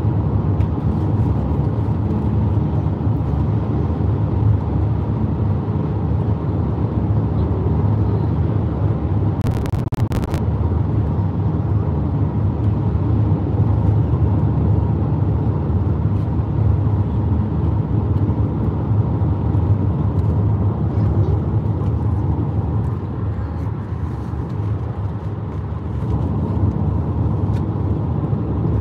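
Steady low rumble of road and engine noise inside a car cabin at highway speed. A brief cluster of clicks comes about ten seconds in.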